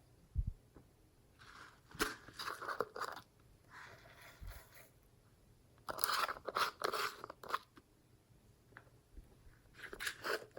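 Glossy slime being squeezed and worked by hand, giving several spells of wet crackling and popping.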